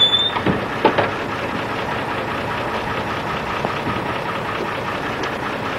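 Van engine idling steadily, with a brief squeak at the start and a few short knocks about a second in.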